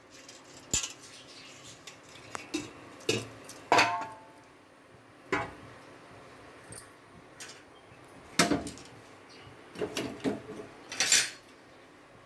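Metal utensils clinking against an aluminium pressure cooker pot: irregular sharp clinks every second or two, one ringing briefly about four seconds in, the busiest run near the end.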